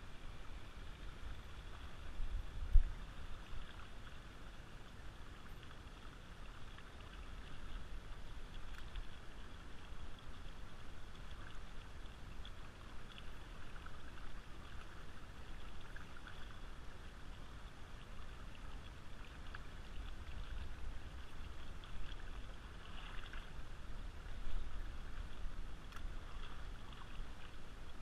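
Steady babbling of a shallow river running over gravel and rocks, with a low rumble underneath and a single thump about three seconds in.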